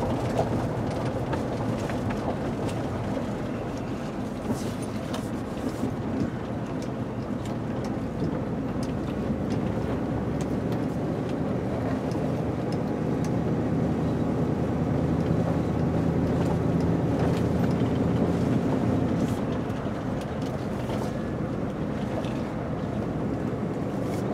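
Pickup truck heard from inside the cab, driving slowly on a gravel road: a steady engine and tyre rumble with scattered faint clicks.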